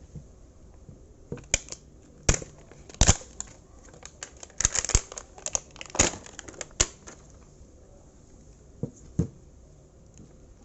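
Lithium battery pack being pried and pulled apart by hand: a run of sharp clicks and snaps, densest between about two and seven seconds in, then two lone clicks about nine seconds in.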